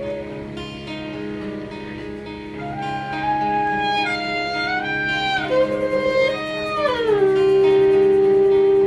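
Live acoustic band playing an instrumental passage: strummed guitar under a melody line that steps and bends, then slides down about seven seconds in into a long held note.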